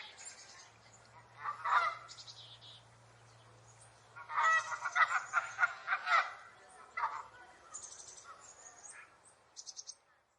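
A flock of geese honking in irregular bursts: a short burst about one and a half seconds in, a dense run of overlapping honks from about four to six seconds, then scattered single honks.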